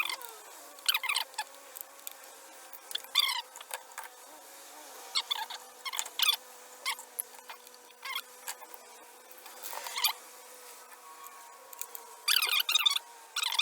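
Audio fast-forwarded eight times: sped-up speech turned into short bursts of high, squeaky chipmunk-like chatter, with gaps between, over a faint steady tone.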